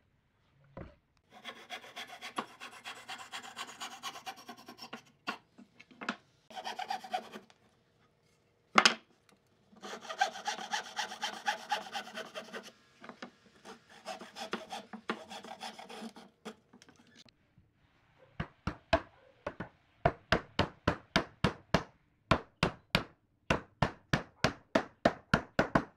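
Hand saw cutting a tenon in wood with rasping back-and-forth strokes, in two long spells with a single sharp knock between them. From about 18 s, quick runs of sharp taps on wood as the tenon is knocked into its mortise.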